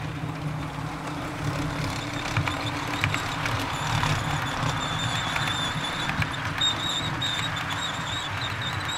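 OO gauge model train of tank wagons rolling past close by: a steady rumble of metal wheels on the track, with scattered clicks as the wheels cross rail joints and a thin high squeal in the second half.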